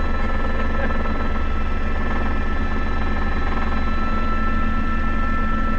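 Helicopter in flight, heard from inside the cabin: a loud, steady drone with a constant high whine.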